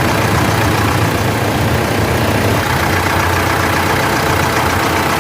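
Mitsubishi L200 Triton 3.2 four-cylinder turbodiesel engine running steadily with a new timing chain fitted; the timing-chain noise it had before the repair is gone.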